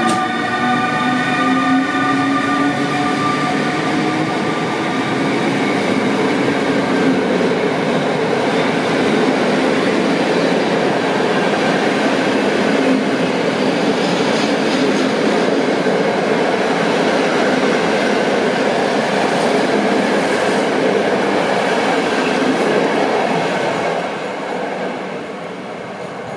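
PKP Intercity EU160 Griffin electric locomotive pulling out with a passenger train, its electric drive whining with a pitch that rises slightly at first. The coaches then roll past with a steady loud rumble of wheels on rail, which fades near the end as the last coach pulls away.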